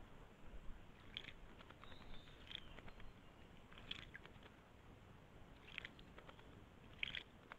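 Near silence: faint background noise, with about five brief, faint high-pitched sounds spaced a second or two apart.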